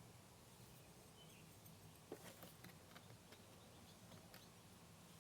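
Near silence: a faint steady hum, with a few soft clicks a little after two seconds in and one more near the end.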